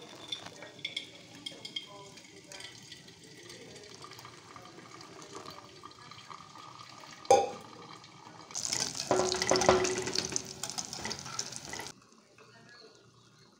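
Hot water trickling from a kettle onto coffee grounds in a paper filter, a soft steady pour with small ticks. About seven seconds in comes a sharp knock, followed by a louder hissing rush that stops abruptly about four seconds later.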